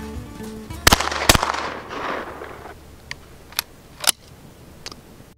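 Two shotgun shots from a break-action shotgun in quick succession about a second in, each a sharp crack followed by a long fading echo. Then a few sharp metallic clicks as the action is broken open and the shells come out of the breech.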